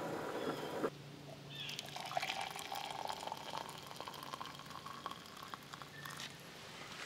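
A steady hiss from a camp stove's gas burner under a percolator, cut off abruptly about a second in. Then coffee is poured from a stainless steel percolator into a ceramic mug, the splashing rising in pitch as the mug fills.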